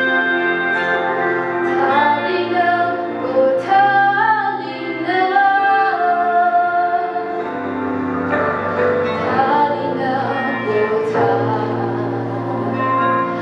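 A young woman singing a devotional song solo into a microphone over steady held accompaniment chords.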